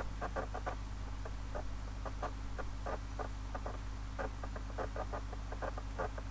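Rapid, irregular small clicks, several a second, over a steady low electrical hum.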